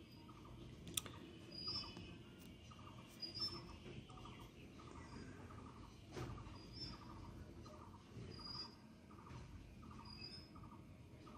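Faint background chirping of small animals: a short low chirp repeating about twice a second, with brief high chirps every second or two and a couple of light clicks.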